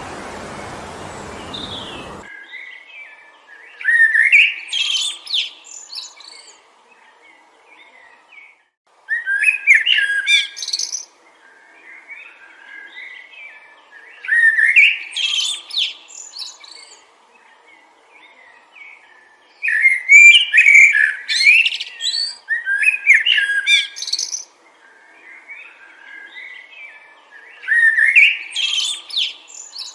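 Wind noise that cuts off suddenly about two seconds in, then a songbird singing short, loud, warbling phrases about every five seconds, with softer chirps between them.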